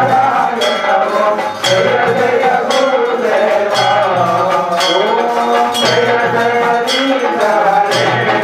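Temple devotional music: a wavering melodic line over a bell struck at a steady beat, about once a second, each stroke ringing on.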